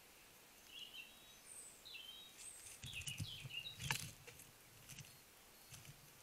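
Wood mice giving a string of short, high squeaks. Their feet scuffle over the ground about three seconds in and again near the end, with a sharp tap near four seconds.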